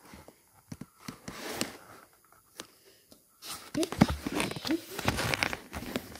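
A page of a paper comic book being turned by hand, with paper rustling and handling noises that grow louder and denser from about three and a half seconds in.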